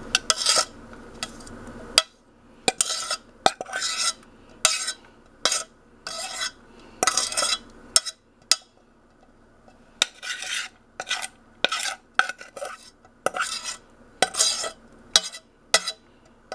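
A metal spoon scraping and knocking against a pot and strainer in short, irregular strokes, about one or two a second, working through cooked elderberries.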